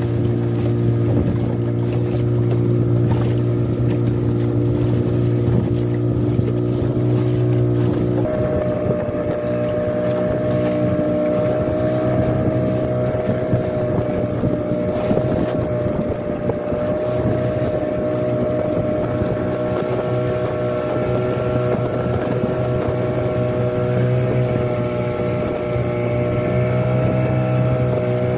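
Outboard motor of a small fibreglass fishing boat running steadily under way, with wind and water noise around it; the engine note shifts abruptly about eight seconds in.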